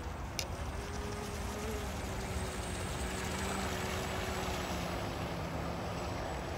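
Converted RC speedboat's 3270 kV brushless electric motor running at speed across the water, a faint steady whine under a wash of wind and water noise.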